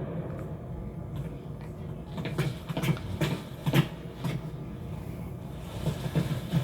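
Film sound effects: a low steady mechanical hum with a series of sharp knocks or clanks, the hum growing louder near the end.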